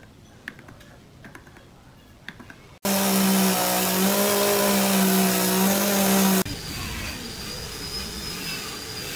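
A handheld electric micro-motor rotary carving tool runs steadily for about three and a half seconds with a loud, even hum. It starts and stops abruptly, between quieter stretches of a few light clicks of hand tools on wood.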